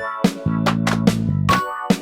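Upbeat electronic intro music: a steady beat of sharp percussive hits over held bass notes, with short melodic notes on top.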